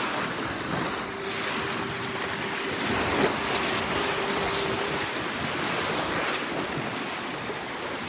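Lake waves washing and lapping against a rocky shore, with wind buffeting the microphone. A faint steady hum runs underneath for a few seconds from about a second in.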